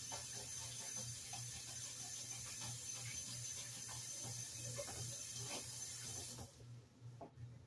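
Kitchen tap running while hands are washed under it, with small splashes and rubbing. The water is shut off about six and a half seconds in.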